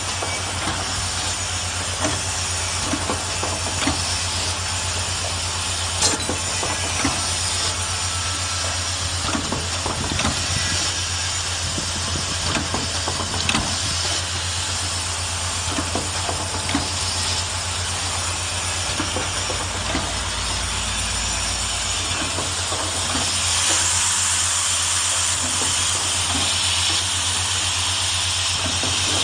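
Lipstick-cap three-part assembly machine running: a steady low hum and hiss with frequent light, irregular clicks and knocks from its moving parts and pneumatic cylinders. The hiss grows louder about three-quarters of the way through.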